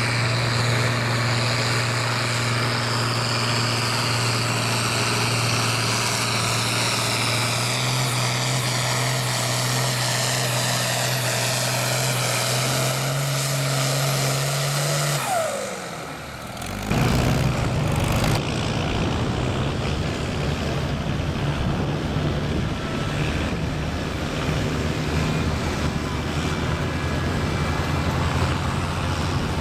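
Diesel farm tractor engine working hard under full load while pulling a weight-transfer sled, with a high whine slowly falling in pitch and the engine note stepping up twice. About 17 seconds in the sound cuts to another tractor's engine running steadily.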